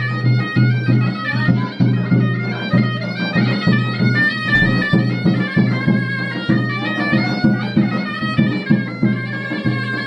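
A ghaita (Moroccan reed shawm) playing a melody over a steady low drone, with drum beats.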